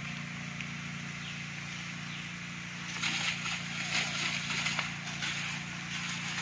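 Motorised power sprayer running with a steady hum while its spray jet hisses from the hose gun. About three seconds in, a louder, irregular crackling patter joins it.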